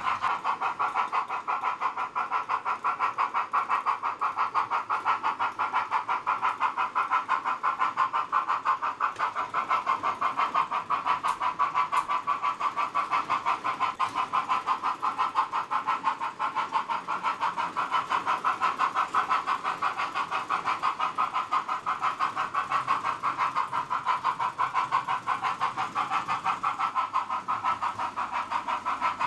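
Model steam locomotive's DCC sound decoder giving a steady chuff, about three beats a second, as the train runs at an even speed.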